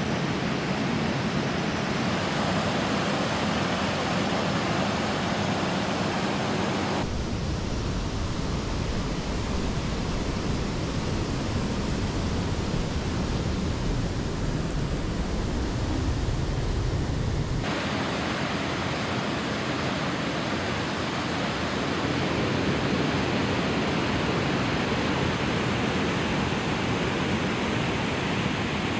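Steady rush of flowing water from a creek and its waterfall. About seven seconds in it changes abruptly to a deeper, duller rush, then switches back about ten seconds later.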